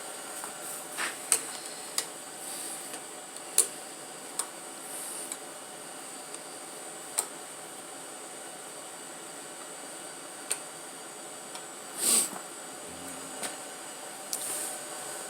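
Scattered sharp clicks and light clinks of hand tools and parts being handled on a slant-six engine during disassembly, with a short scraping rush about twelve seconds in, over a steady background hiss.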